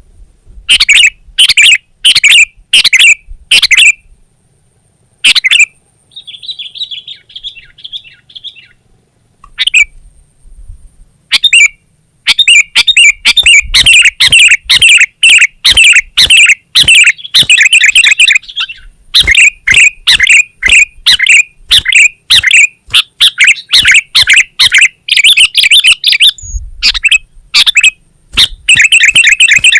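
Sooty-headed bulbul (kutilang) singing loud bursts of short, sharp repeated notes. A lull of several seconds comes with only a faint trill, then the singing runs almost without a break from about twelve seconds in.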